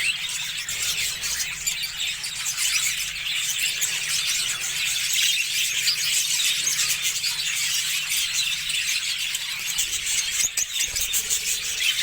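Budgerigars chattering: a continuous, dense high-pitched chirping and squealing of many rapid short notes.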